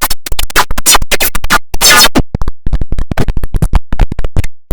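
The IBM OS/2 Warp 3 shutdown sound put through audio effects: chopped into many short fragments and stuttered rapidly, like record scratching, with a couple of longer smeared stretches about a second and two seconds in.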